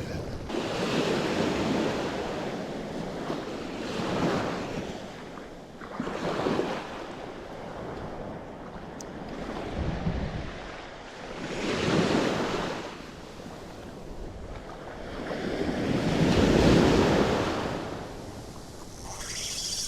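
Surf washing up on a beach, swelling and fading every few seconds, the biggest wave a few seconds before the end, with wind rumbling on the microphone.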